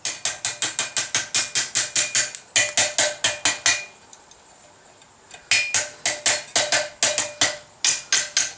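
Hammer striking steel in quick, even blows, about five or six a second, each with a bright metallic ring. The blows pause for about a second and a half midway, then resume.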